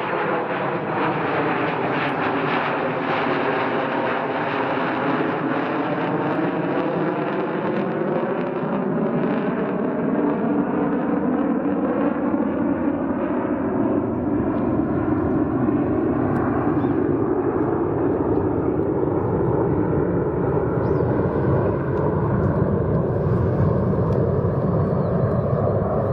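Jet aircraft engines running steadily as the plane flies past, a dense rush of noise with a slow whooshing sweep that falls and then rises in pitch, growing deeper and fuller in the second half.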